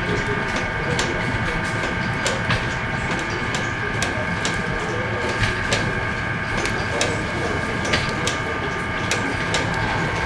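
Tulumba dough extruding machine running with a steady whine and hum, punctuated by frequent sharp clicks as its cutting head chops off pieces of extruded dough.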